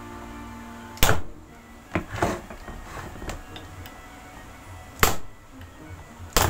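Sharp knocks of a hammer on a large screwdriver braced against a Miyako blender's drive coupling, striking it clockwise to loosen it from the motor shaft: single blows about a second in and about five seconds in, a double knock around two seconds, and another near the end. Background music plays throughout.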